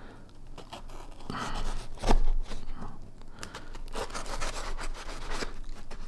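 Folding knife blade slicing through the edges of a cardboard mailing box: a run of scraping, tearing cuts, with a louder stroke about two seconds in.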